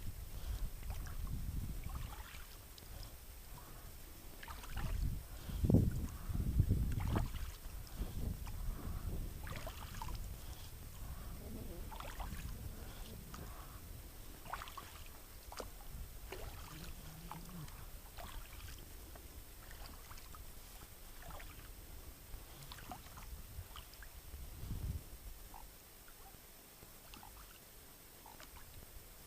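Inflatable kayak being paddled over calm water: soft, irregular paddle splashes and drips. A low rumble swells about five to seven seconds in and again briefly near 25 seconds, then eases off.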